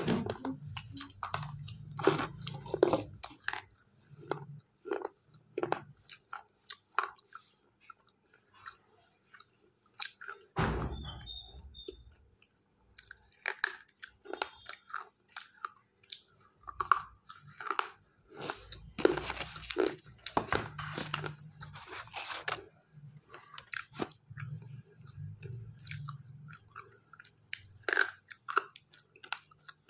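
Slate pencils being bitten and chewed close to the microphone: sharp, irregular crunches and snaps with grinding chewing between them. A heavier low bump comes about eleven seconds in.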